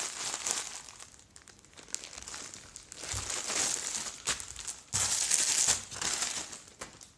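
A plastic mailing bag and the clear plastic wrapper of a T-shirt crinkling as they are handled and opened by hand, in several bursts with quieter gaps between.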